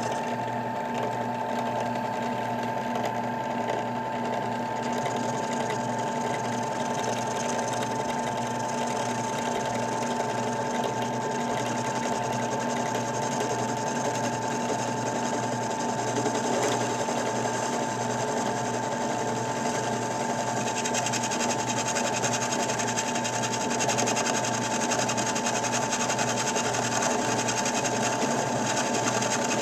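Bench drill press running steadily with a constant motor hum, spinning an aluminium tube that is being turned against a cutting tool. A brighter, hissing edge comes into the sound about twenty seconds in.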